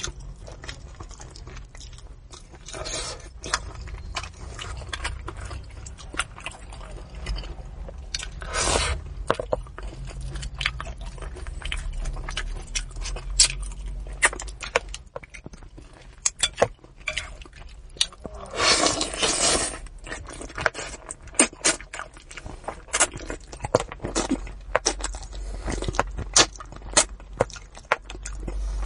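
Close-miked eating of spicy braised fish: wet chewing and smacking with many sharp clicks and scrapes, and a few longer rustling, slurping bursts.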